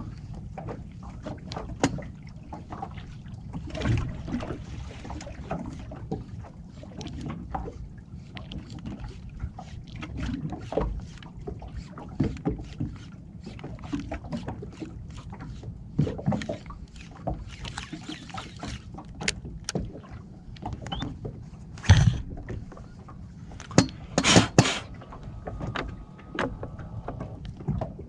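Small boat on the water: water lapping and slapping against the hull, with many irregular clicks and knocks of gear being handled and a low steady rumble underneath. A few louder knocks come late on.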